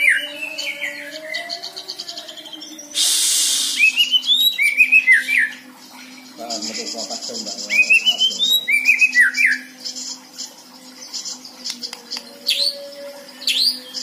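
White-rumped shama singing: phrases of quick whistled notes that rise and then fall, repeated about every four seconds, with fast rattling trills between them and a brief hissing burst about three seconds in. Near the end come two quick falling whistles.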